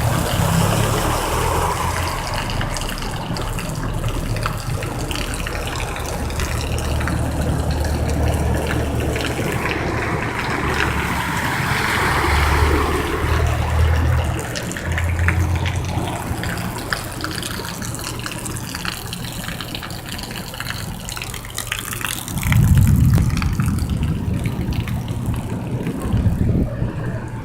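Rain falling, a steady hiss of water with scattered pattering ticks over a low rumble that grows louder near the end.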